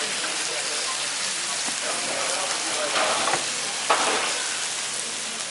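Huge joints of beef sizzling on a hot flat-top griddle: a steady hiss and crackle of fat and juices, swelling louder briefly around three and four seconds in.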